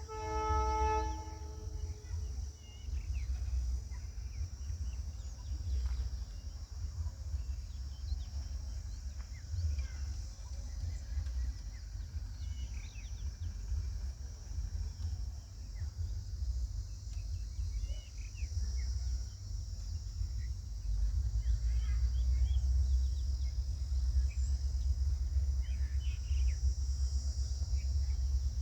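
Outdoor ambience: a steady high insect buzz with scattered short bird chirps over a low rumble, which grows louder about two-thirds of the way through. A brief pitched tone sounds right at the start.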